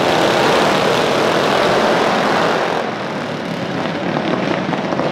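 A pack of outlaw-class racing mini bikes launching off the start together, many small single-cylinder four-stroke engines revving hard at once in a loud buzz. The sound eases a little about three seconds in as the pack pulls away.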